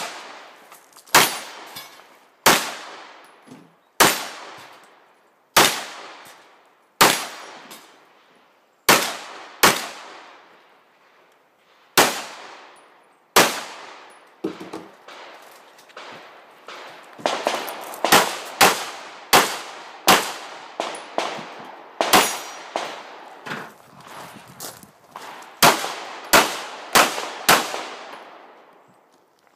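CZ 75 pistol fired about two dozen times, each shot sharp with a ringing tail. The shots come singly about every second or so at first, pause briefly mid-way, then come faster in quick pairs and strings in the second half. Steel plate targets clang on hits.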